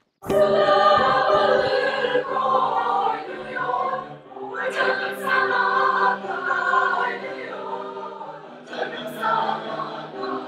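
A mixed choir of teenage voices singing held chords, coming in abruptly just after the start, with short breaths between phrases.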